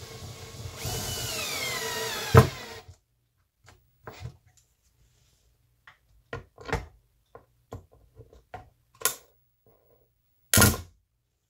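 A screw being driven into the wooden mounting board: a grinding, screeching run of about two and a half seconds whose pitch falls as the screw bites and seats, ending in a sharp snap. Then scattered clicks and knocks of the screwdriver and the metal mounting bracket being handled.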